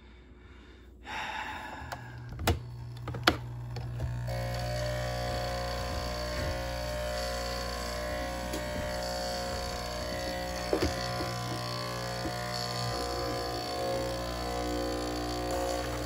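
Nespresso coffee machine's electric pump buzzing steadily. It starts about a second in and sits on a strong low tone, joined by a higher buzz from about four seconds in. The pump is running while air is purged from its air-locked water intake. Two short knocks come from the plastic water tank being handled early on.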